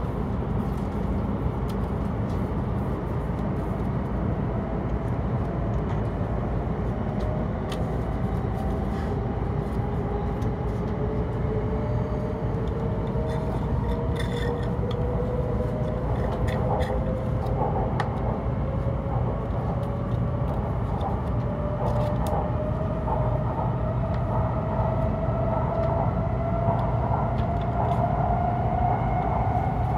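Hokuriku Shinkansen train heard from inside the passenger cabin as it pulls out of a station: a steady rumble of the running gear under a traction-motor whine that climbs slowly in pitch as the train gains speed.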